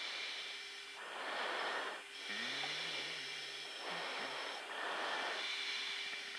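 Hiss of an open radio channel, rising and falling in surges about a second long, with a faint low wavering tone a little after two seconds in.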